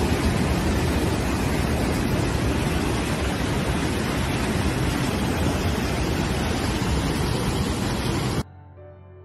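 Floodwater rushing and pouring over a low wall in a loud, steady torrent, heavy in the low end. It cuts off suddenly near the end.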